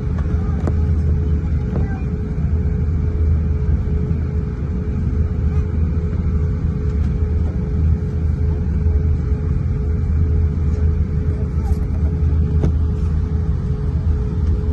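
Cabin noise of an Airbus A350-900 taxiing, heard from inside: a steady low rumble from its Rolls-Royce Trent XWB engines and airframe, with a constant mid-pitched hum over it.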